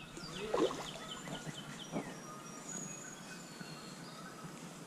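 Songbird singing: a quick series of short, high notes stepping down in pitch, then a few thin high whistles, with a couple of soft, brief knocks underneath.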